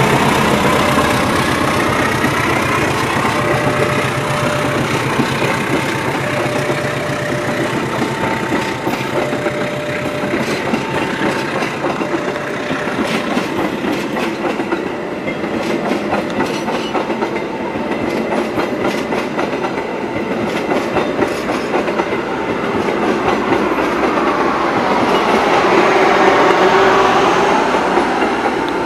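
Stainless-steel passenger carriages of a long-distance train rolling past, their wheels clattering steadily over the rail joints, louder near the end. Throughout, a level-crossing warning alarm sounds two tones, high then low, taking turns every second or so.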